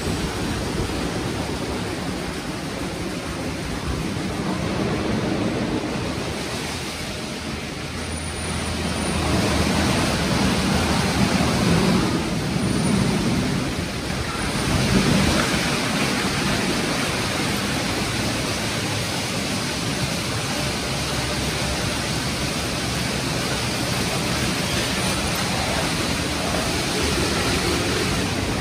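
Istobal M'NEX 22 rollover car wash working over a car: rotating wash brushes and water spray against the wet bodywork make a steady rushing noise, swelling a little about ten to fifteen seconds in.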